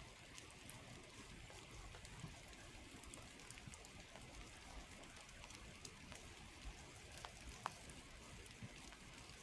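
Light rain falling in a forest: a faint, steady hiss with scattered sharp ticks of drops landing, one louder drip about seven and a half seconds in.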